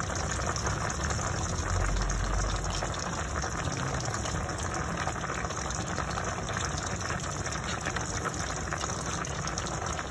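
Broth of a green-mussel soup at a rolling boil in a pot: steady, vigorous bubbling.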